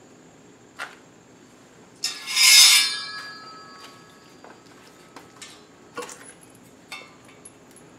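Metal tool-rack rail clanking and rattling as it is picked up off the concrete floor, with a short metallic ring, about two seconds in. A single click comes just before it, and a few light clicks and taps follow as the rail is handled.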